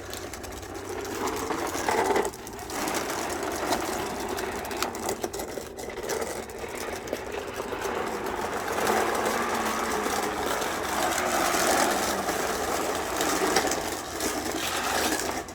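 Toy bubble lawn mower running: a steady mechanical whirring with rapid fine clicking that swells and dips, with short breaks about two and six seconds in.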